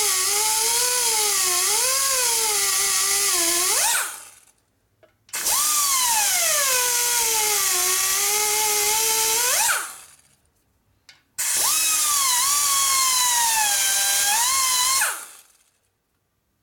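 Die grinder with a rotary burr cutting into the cast-iron cylinder wall of a Ford Model A four-cylinder flathead block, grinding back along a crack. It runs three times for several seconds each, its whine dropping in pitch as the burr bites, then rising sharply just before each sudden stop.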